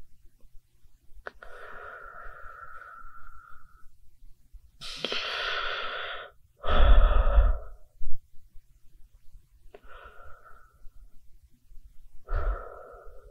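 Human breathing heard close and loud: five separate breaths a second or two apart. The loudest comes about seven seconds in, with a low rumble.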